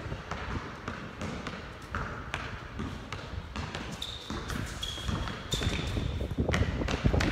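Basketball being dribbled on a hard court, the bounces coming at an irregular pace, with a few short high sneaker squeaks midway.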